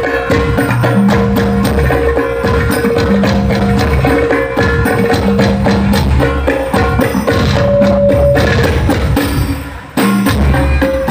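Hadroh-style sholawat music, with a busy percussion beat, played loudly through a large sound-horeg speaker system during a sound check. A deep bass note comes back about every two seconds. The music dips briefly just before ten seconds in, then returns at full level.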